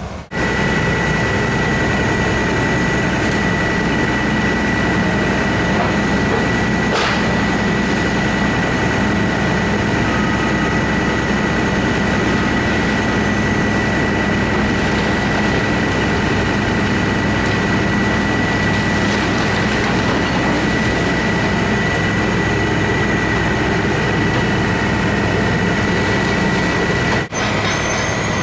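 Fire engine's diesel engine and pump running steadily at high speed while it sprays a water stream, with a constant high-pitched whine over the engine noise. The sound breaks off briefly near the end.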